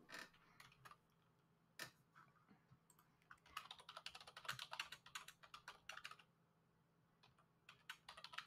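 Faint typing on a computer keyboard: a few scattered keystrokes, then a quick run of typing about three and a half seconds in that lasts nearly three seconds, and a few more keys near the end.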